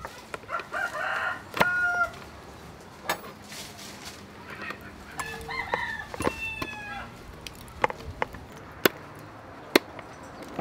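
Chickens calling twice, about a second in and again for a couple of seconds in the middle, with sharp plastic-and-metal clicks as the beaters are pushed into the sockets of an electric hand mixer; the loudest clicks come near the end.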